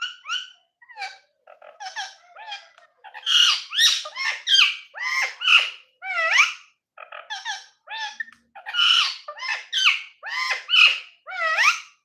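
Rose-ringed parakeet chattering in a fast, unbroken run of short squawks and whistled notes that rise and fall in pitch, growing louder and busier about three seconds in.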